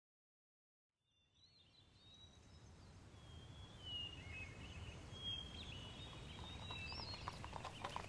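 Outdoor ambience sound effect fading in after a second of silence, with birds chirping, and horse hooves clopping beginning near the end.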